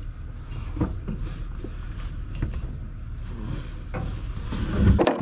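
Soft knocks and rubbing from the brake pedal of a 1955 Chevy 6100 being pumped during brake bleeding, with a louder clatter near the end. The pedal only half firms up because brake fluid is leaking out of the system.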